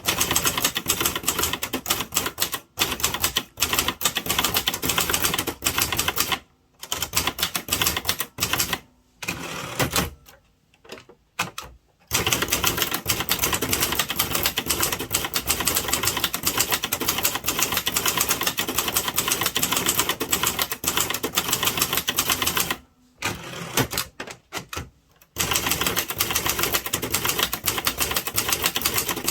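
Gong Byeong-woo Hangul manual typewriter (Gong-Han-Yeong 201) typed at speed, a dense run of key strikes. The typing breaks off a few times, with two longer pauses about ten seconds in and again around the three-quarter mark.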